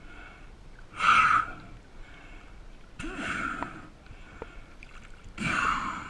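Spearfishing diver breathing hard at the surface after a dive, three heavy breaths about two seconds apart, the middle one the loudest.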